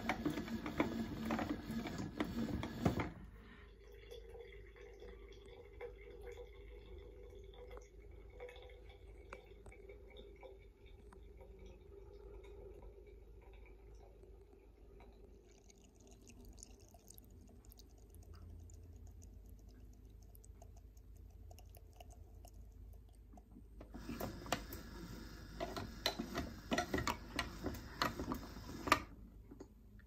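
Motor of a vintage Casdon toy washing machine whirring and rattling as it turns the drum, stopping about three seconds in. Then a quieter stretch of water trickling and dripping over a faint steady hum, before the machine whirs and rattles again for about five seconds near the end and cuts off.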